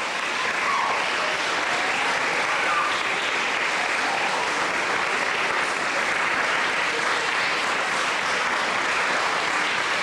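Audience applauding steadily, a dense unbroken clapping.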